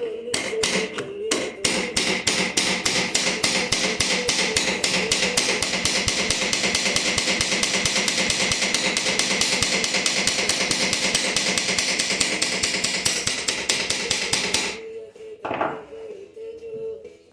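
Hammer striking the hammer-set rivets of a motorcycle clutch basket in a fast, even run of sharp metallic blows, about five a second, stopping about fifteen seconds in.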